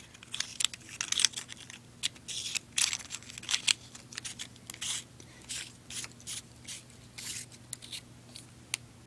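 Hands screwing the threaded metal sections of a pen-style laser pointer back together, giving an irregular run of short scraping clicks and rasps from the threads and handling.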